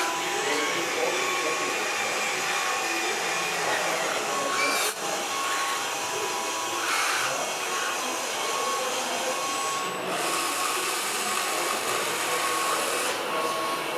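Steady whir of the small electric motors and gearboxes of radio-controlled model trucks, with a thin on-off whine, over a background murmur of voices. The sound changes abruptly about five seconds in and again about ten seconds in.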